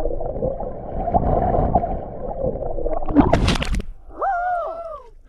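Underwater bubbling and gurgling from a person plunging into water off a cliff, heard through a submerged camera. About three seconds in comes a loud splash, and a brief wavering tone follows near the end.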